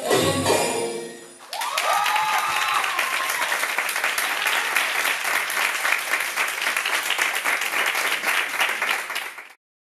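The last notes of the dance music fade away, then an audience bursts into sustained applause with a cheering voice near the start of it. The applause is cut off suddenly near the end.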